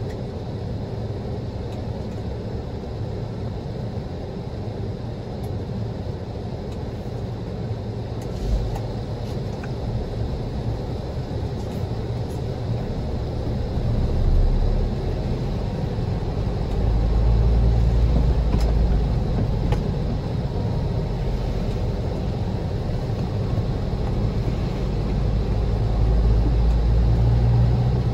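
A car driving over rough, snow-packed roads, heard from inside: a steady low rumble of engine and tyres that swells louder several times, with a single knock about eight seconds in.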